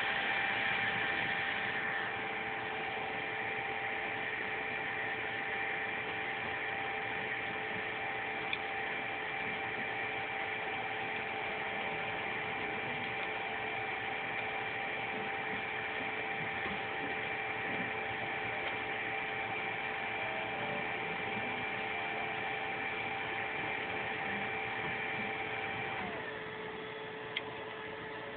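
Y-axis stepper motor of a Prusa Mendel I2 RepRap 3D printer running at steady speed, giving a steady whine of several tones. About 26 seconds in, the upper tones glide down and stop as the motor slows, leaving a lower steady hum.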